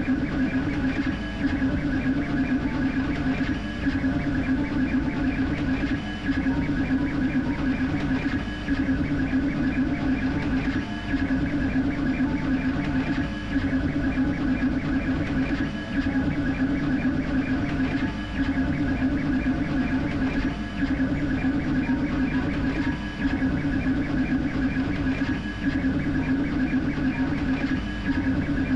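Creality K1C 3D printer printing at high speed, its toolhead darting back and forth: a steady mechanical whir with a high whine over it, dipping briefly about every two and a half seconds.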